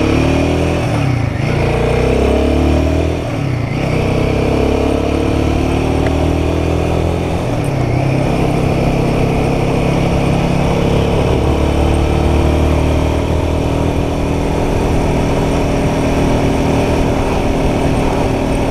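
Royal Enfield Guerrilla 450's single-cylinder engine accelerating through the gears, its pitch climbing and dropping at two quick upshifts in the first few seconds, then pulling steadily at road speed.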